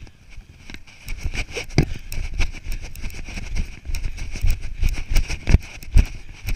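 Running strides thumping through a body-worn action camera, with wind rumbling over its microphone. The thumps come irregularly, about two a second, and are heaviest in the second half.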